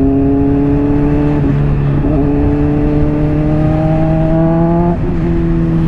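Honda CBR600RR inline-four engine through a slip-on exhaust, running under load with its note rising slowly, broken briefly about a second and a half in and again near five seconds, over wind rush.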